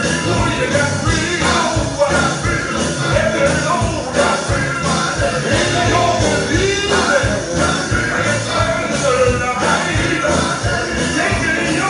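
Live gospel quartet performance: men's lead and harmony voices singing over electric guitar and a drum kit keeping a steady beat.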